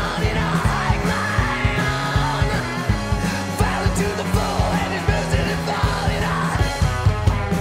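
Loud rock music: a band playing with a steady drum beat, bass and shouted vocals.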